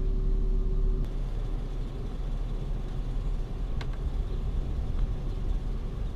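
Vehicle engine running with a low, steady rumble, heard from inside the cab. A single light click about four seconds in.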